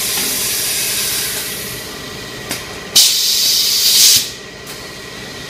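Automatic paper baking-cup forming machine running with a steady hum, broken by two loud bursts of hissing air: one fades out about a second and a half in, and another starts about three seconds in and lasts just over a second.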